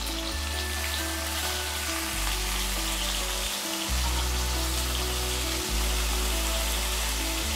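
Whole prawns sizzling as they fry in hot oil in a kadai, just after going into the pan. Background music plays underneath, its low notes changing every second or so.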